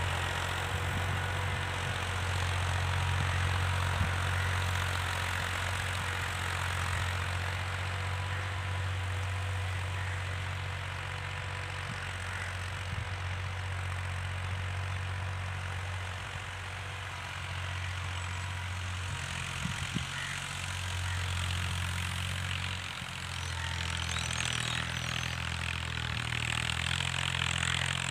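Ghazi tractor's diesel engine running steadily under load while pulling a plough through the soil. It grows somewhat fainter as the tractor moves away and swells again near the end as it turns at the far end of the field.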